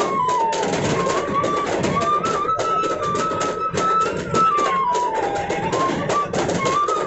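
Bamboo flute playing a wandering folk melody over fast, sharp percussive beats.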